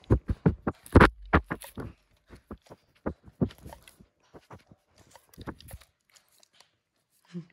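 A coonhound sniffing and nosing at the camera at close range. Its nose and fur bump and rub on the microphone in a run of sharp knocks and scuffs, densest in the first two seconds. There is a short low whine from the dog near the end.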